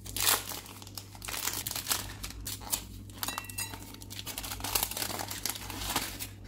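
Chocolate bar wrappers of plastic, foil and paper crinkling and crackling as they are unwrapped by hand, in close, irregular bursts.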